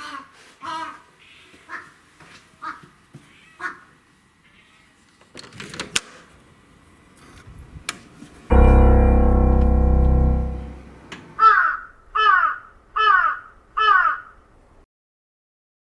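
Crows cawing: a run of short caws in the first few seconds, then four more caws near the end. In between, about halfway through, a loud sustained chord sounds, the loudest thing here, and fades out over about two seconds.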